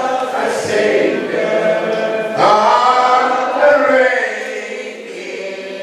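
Church congregation singing together, with a new sung phrase starting about halfway through.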